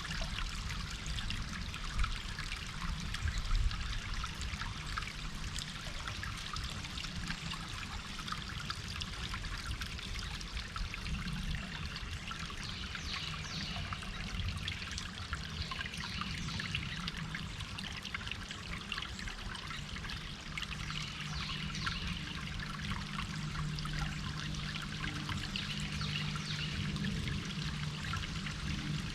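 Small stream running and trickling in a steady rush, with a low steady hum underneath that grows stronger near the end.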